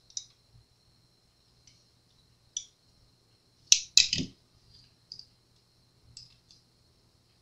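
Light clicks and taps of metal Allen keys being pulled from and handled in a plastic hex-key holder, with two sharper clicks in quick succession about four seconds in.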